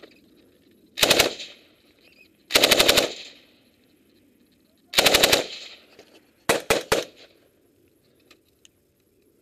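Belt-fed machine gun firing short bursts: three bursts of several rapid shots, then three quick separate shots near the end, each followed by a short echo.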